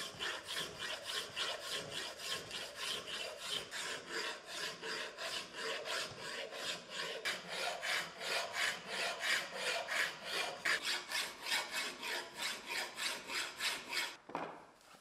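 Flat hand file rasping back and forth across a brass knife-handle piece held in a vise, in quick even strokes of about three a second, stopping about a second before the end.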